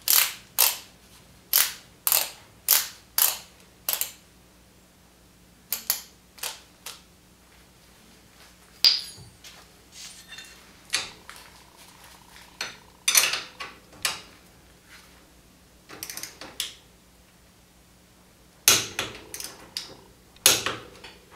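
Socket wrench ratcheting as the shock bolt is tightened: sharp clicks about twice a second for the first few seconds, then scattered clicks and metal tool knocks, with a busier run near the end.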